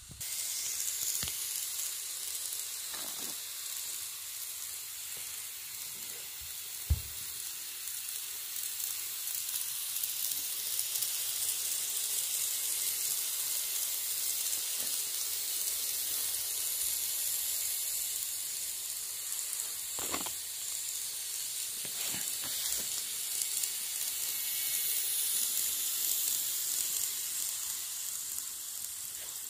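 N-gauge model train (651 series coupled to an E353) running along sectional track, a steady high hiss of wheels and motor, with a sharp click about seven seconds in and a few fainter ticks.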